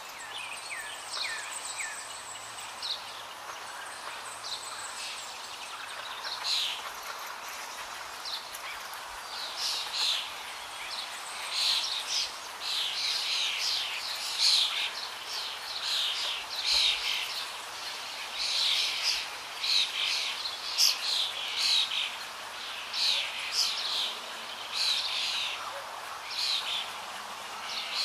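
Birds chirping: many short, quick chirps, sparse at first and busier from about six seconds in.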